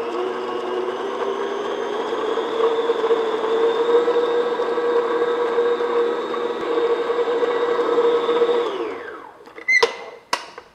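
Stand mixer motor running steadily as its paddle beats butter and sugar until light and fluffy. The motor winds down and stops about nine seconds in, followed by two sharp clicks.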